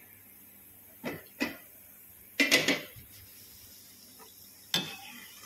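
Slotted metal spoon clinking and scraping against a steel frying pan of gulab jamun balls deep-frying in oil: a few short knocks, with a longer scrape in the middle, over the faint steady sizzle of the hot oil.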